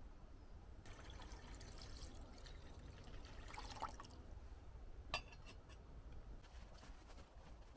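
Water poured from a plastic bottle into a small steel pot, rising in pitch as it fills. A little after five seconds comes a single sharp metallic clink as the pot is set on a small camping stove, then a few light clicks.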